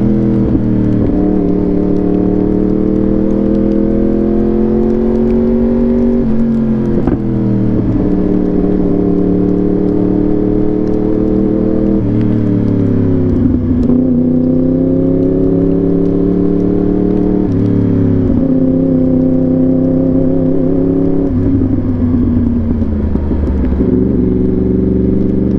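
Yamaha R1 inline-four through an SC Project exhaust, ridden on the road. Its engine note climbs slowly and drops back in steps several times, with no break in the sound.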